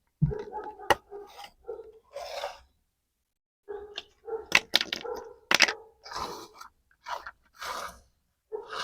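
Pieces of a plastic toy kitchen set being handled and unpacked: irregular clicks and taps of plastic against plastic, with crunchy, crinkling rustles, and a short pause about three seconds in.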